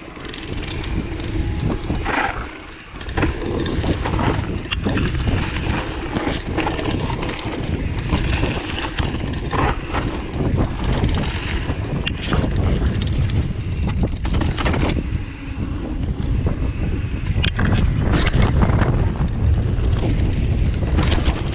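Wind buffeting the microphone over the rumble and rattle of a full-suspension mountain bike riding fast down a bumpy trail, with frequent short knocks from the bike jolting over the ground.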